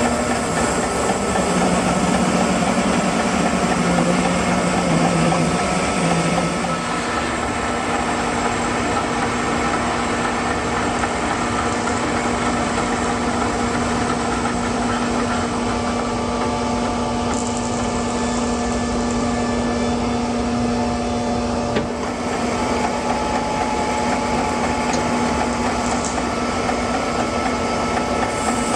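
Sawmill engine running steadily as the saw cuts a walnut log, its engine note stepping up in pitch about six or seven seconds in.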